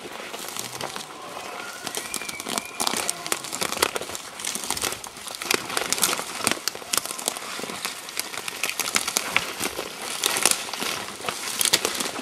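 Close, continuous rustling and crackling with many sharp snaps: dry brush, twigs and clothing rubbing right at the microphone as the hunters move.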